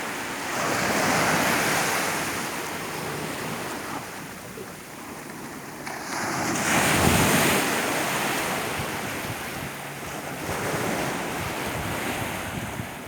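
Mediterranean waves washing onto the beach, rising and falling in slow surges with the loudest about halfway through, and wind buffeting the microphone.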